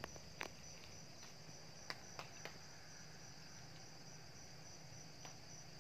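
Crickets chirping in a steady, fast-pulsing trill, with a few faint clicks in the first couple of seconds from hands handling the seedlings.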